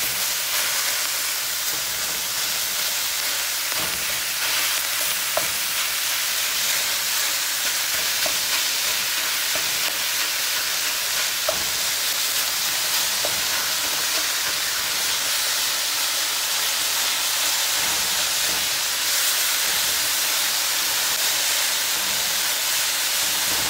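Ground beef sizzling steadily as it browns with onions and garlic in an enamelled pot, with a few faint taps and scrapes of a spatula breaking up the meat.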